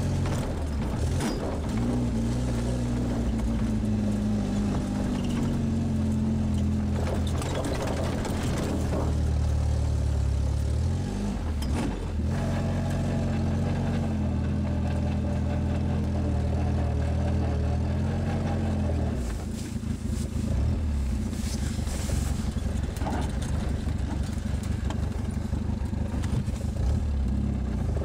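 Škoda 440 Spartak's four-cylinder engine heard from inside the cabin while driving, running with a steady note. About 11 seconds in the note dips and picks up again, and from about 19 seconds on it turns rougher and less even, with occasional knocks and rattles.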